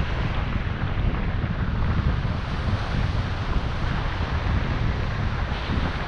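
Wind buffeting the microphone over the steady wash of breaking ocean surf.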